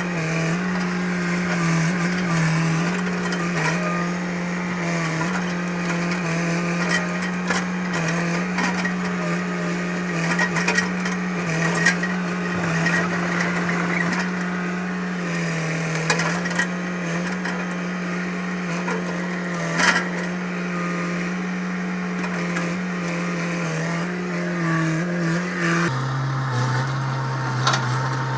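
Hitachi EX100 excavator's diesel engine running steadily at working speed, then dropping to a lower pitch about two seconds before the end. A few sharp cracks and knocks come through over it.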